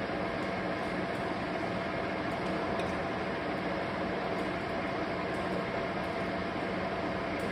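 Metal lathe running steadily: an even mechanical hum and whir with a few faint steady tones, no strikes or changes.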